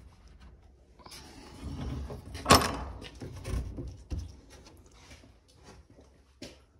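A timber shed door being unbolted and opened: a metal barrel bolt slides back with one loud sharp clack, followed by several wooden knocks and rattles as the door swings open.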